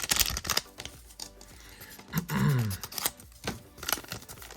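Trading cards being handled and flipped through, with quick snaps and slides of card stock. About halfway through comes a short, low, falling hum.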